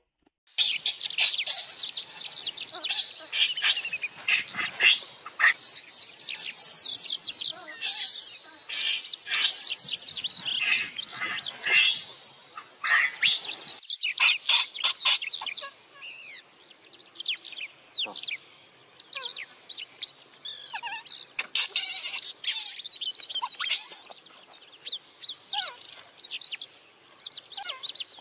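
Small birds chirping in quick, high, overlapping twittering notes, dense at first and thinning out after about halfway.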